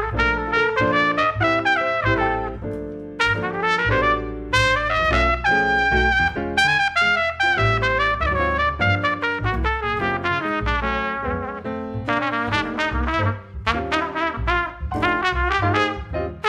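Jazz trumpet playing a solo line of many short, quick notes, over plucked upright double bass and piano.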